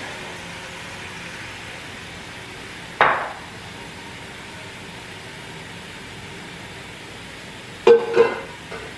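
Kitchen faucet running steadily into a sink, with a sharp knock about three seconds in and a short clatter of dishes knocking in the sink near the end.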